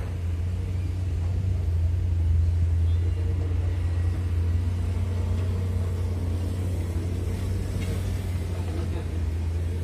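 Steady low engine rumble of heavy vehicles, swelling slightly a couple of seconds in.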